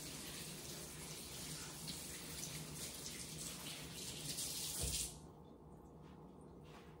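Kitchen sink faucet running while hands are washed under it, shut off about five seconds in with a short low thump.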